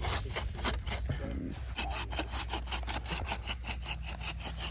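Hand saw cutting through the trunk of a standing Christmas tree in steady back-and-forth strokes, with a short break about a second in before the strokes resume a little faster.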